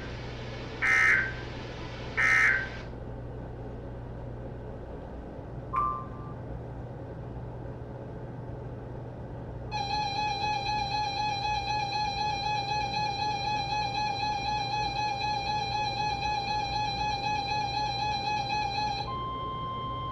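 NOAA Weather Radio SAME digital data bursts screech twice in the first few seconds as the warning message ends, followed by a faint short blip. From about ten seconds in, a loud, buzzy, warbling electronic alert tone pulses rhythmically for about nine seconds. Near the end it gives way to the steady single-pitch 1050 Hz Weather Alert Tone.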